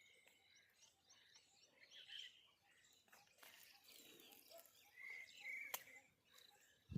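Quiet outdoor ambience with faint, scattered bird chirps, including a short pair of whistles about five seconds in. A single sharp click follows shortly after, and a soft low thump comes at the very end.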